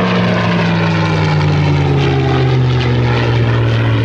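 Rolls-Royce Merlin-engined piston warbird flying past with a steady engine drone. The engine note drops in pitch over the first couple of seconds as the aircraft goes by, then holds low.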